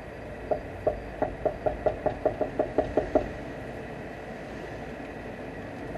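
A quick run of about thirteen knocks or taps, starting slowly and speeding up to about five a second, then stopping, over the steady hum of a car cabin driving in rain.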